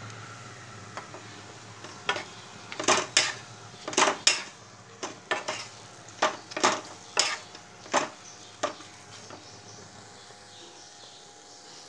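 Metal spatula scraping and knocking against a pan while a thick vegetable mash is stirred: about a dozen quick, uneven strokes in the middle of the stretch, over a low steady hiss.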